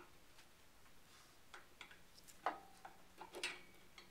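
Light, irregular clicks and taps of a small object being handled and turned over, with a louder click about two and a half seconds in and another about three and a half seconds in.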